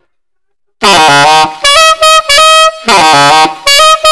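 P. Mauriat alto saxophone played loud, starting about a second in: several short phrases of held high notes, the two longer phrases sliding up into the note at the start.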